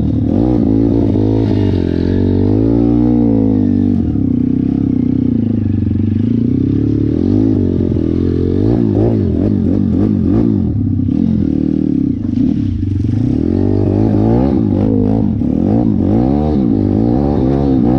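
Pit bike's 150 cc YX single-cylinder four-stroke engine running under load as it is ridden, the revs rising and falling again and again as the throttle is worked, with quick up-and-down revving about halfway through and again near the end.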